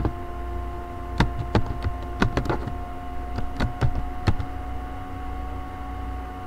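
Computer keyboard keys being typed: an irregular run of about ten sharp clicks that stops about four and a half seconds in. A steady electrical hum runs underneath.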